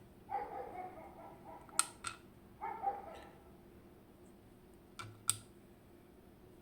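Small metal lock parts clicking as an Abloy Exec disc-detainer lock is taken apart: four sharp clicks in two pairs. Two short whine-like calls sound in the first three seconds.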